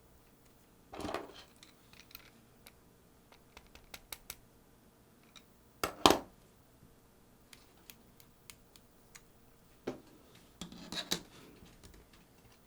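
Small parts and hand tools being handled while a Sony HVR-DR60 hard-disk recorder is taken apart: scattered light clicks and taps of plastic and metal, short scrapes about a second in and near the end, and one sharper knock about six seconds in.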